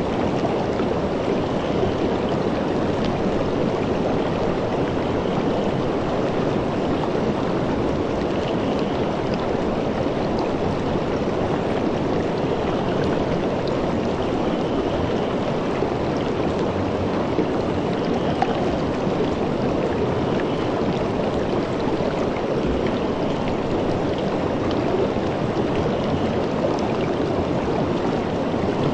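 Shallow river water rushing steadily over rocks and riffles.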